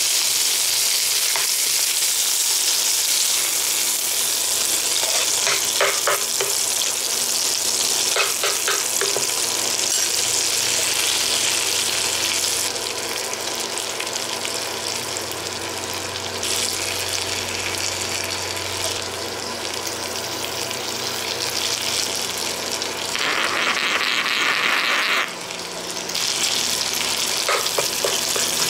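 Pork chops and chopped garlic sizzling in hot fat in a nonstick frying pan. A metal spoon clicks and scrapes against the pan a few times, and the sizzle softens a little about halfway through.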